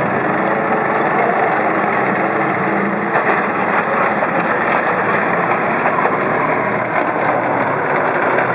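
Heavy engine of a tracked military vehicle running steadily under load as it climbs onto a small car and rolls over it, crushing it, with the noise of its tracks.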